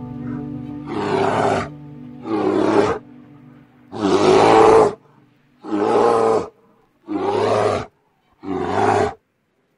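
A big cat roaring: a series of six roars, each under a second long and about a second and a half apart.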